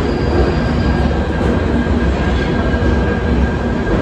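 London Underground 1995 Stock Northern line train running alongside a station platform in a tunnel: a loud, steady rumble of wheels on rails and traction equipment.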